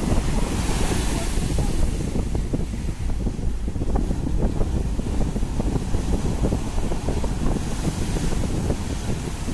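Sea surf breaking and washing in a continuous roar of water, with wind buffeting the microphone. The hiss of breaking waves swells up near the start and again near the end.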